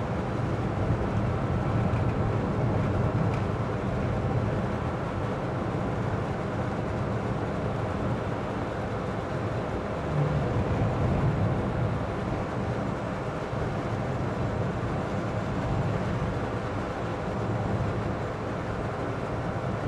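Steady cabin noise inside a Citroen Ami electric car driving on wet roads in heavy rain: a low road and tyre rumble with the heater fan running, swelling briefly about halfway through.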